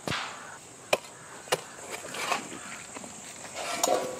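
An iron digging bar driven into hard ground, breaking up clods of red soil: a series of sharp strikes, the first three about half a second to a second apart, then softer ones.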